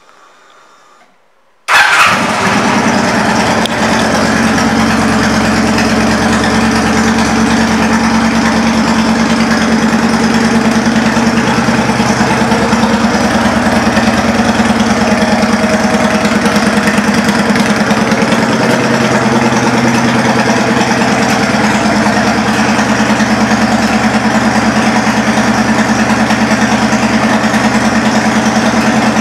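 2006 Kawasaki Vulcan 900 Classic's V-twin engine with aftermarket Cobra exhaust pipes, starting up suddenly about two seconds in and then idling steadily and evenly.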